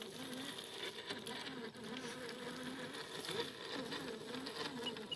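A Redcat Gen 8 RC crawler's 16-turn 5-slot Team Brood brushed motor and drivetrain whining faintly as the truck creeps along at very low speed, the pitch wavering up and down with the throttle.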